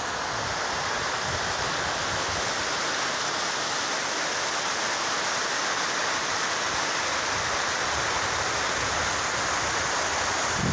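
Poor Fork of the Cumberland River rushing over shallow rocky rapids: a steady hiss of white water.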